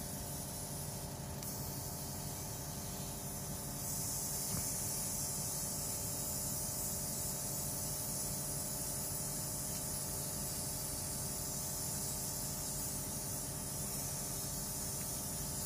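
Steady background hiss with a low hum under it, with no distinct event; the hiss gets a little louder about four seconds in.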